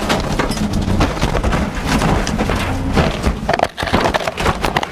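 Rally car crashing off the road into trees and tumbling, heard from inside the cabin: an irregular string of bangs, crunches and scrapes of bodywork and branches over the engine, which fades out partway through.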